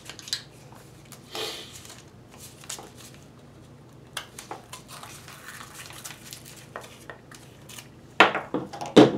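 Hands handling and picking at a cardboard fireworks canister shell: paper rustling, scraping and small clicks, with a few sharp knocks near the end.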